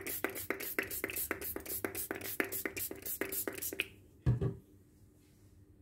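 Small handheld pump spray bottle misting water onto a paper towel: a quick run of short spritzes, about four a second, that stops just before four seconds in. A single thump follows about half a second later.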